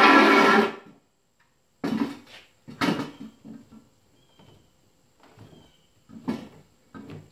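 Metal scraping and clunking as a Briggs and Stratton engine hanging from a rope is worked free of a tiller frame: a loud scrape in the first second, then four or five separate clunks.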